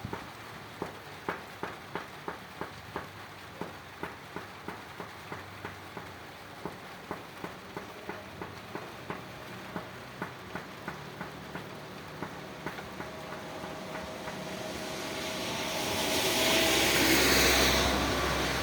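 Water dripping steadily, about three to four drops a second, over light rain. Near the end a passing vehicle's noise swells up loudly, with a low rumble, and begins to fade.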